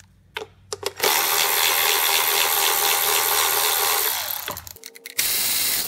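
A few light clicks as the socket goes onto an 8 mm ignition-coil bolt. Then a cordless electric ratchet runs steadily for about three seconds, backing the bolt out. It stops, and near the end it runs again briefly on the next bolt.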